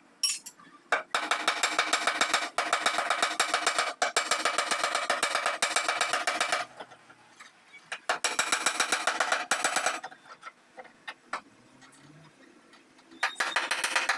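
Hammer rapidly tapping the sheet steel of a truck cab panel to beat out dents, the metal ringing with each blow. The blows come in runs of several a second, with a pause near the middle and a longer one in the last third.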